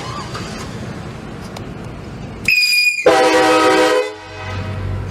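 Train horn sounding once for about a second, a loud chord of several pitches that cuts off sharply. Just before it comes a brief high tone, and a low steady hum follows.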